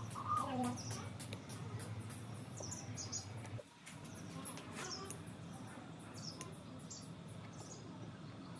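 Small clicks and taps of a tweeter and its wires being handled and fitted into a plastic speaker cabinet, with birds chirping in the background.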